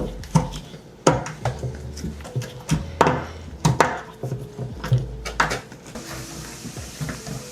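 Irregular sharp wooden knocks and clatter from an old stair railing being taken off, over background music with a steady bass line.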